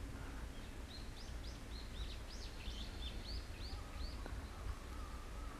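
A small bird singing a quick run of about a dozen short, high chirps, roughly four a second, that stops a little past the middle, over a steady low outdoor rumble.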